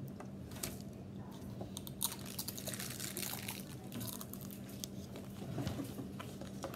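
A crunchy cookie being bitten and chewed close to the microphone: a run of short, crisp crackles over a steady low hum.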